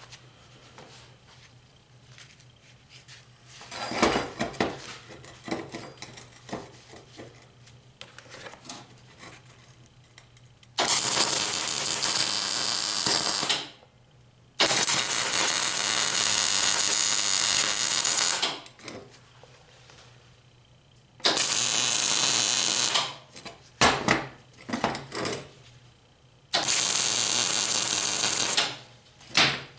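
MIG welder laying weld beads on steel: four bursts of steady arc crackle and hiss, each about two to four seconds long, separated by pauses. A few light metallic knocks come about four seconds in.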